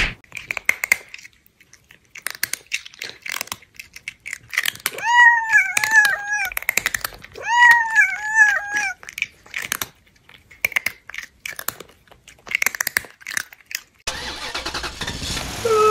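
A string of edited sound effects: scattered crunching and clicking, and two wavering high-pitched calls that rise and then fall, a couple of seconds apart. From about two seconds before the end, a car engine runs steadily.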